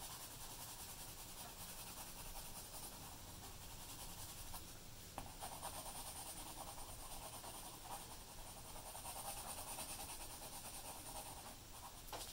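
A graphite pencil scratches on paper in quick, steady back-and-forth shading strokes, laying down a very dark gray tone.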